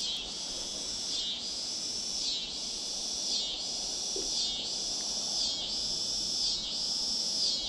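Insect chorus: a high, continuous buzz that swells and dips at an even pace, about once a second.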